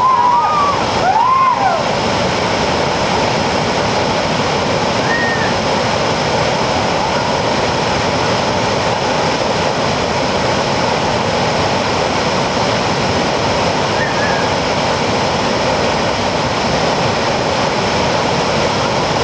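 Waterfall's steady rushing roar of falling water, with a few brief high sliding calls in the first two seconds.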